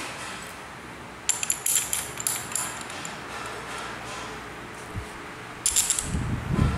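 Metal clinking and rattling as a brush cutter's two-piece handlebar clamp and its bolts are fitted around the aluminium shaft. A run of sharp clicks comes about a second in, and another near the end is followed by low knocks.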